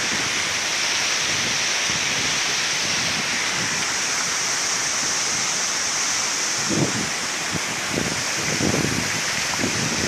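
Steady rush of a waterfall plunging into its pool, with river water running over rocks; a few low, uneven rumbles come in during the last few seconds.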